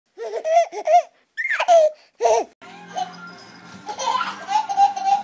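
A baby laughing and giggling in short bursts. From about two and a half seconds in, music plays underneath.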